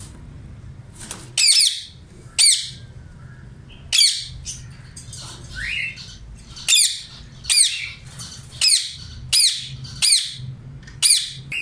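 Small pet parrot squawking repeatedly: about nine loud, short calls roughly a second apart, each a quick falling note, starting about a second in.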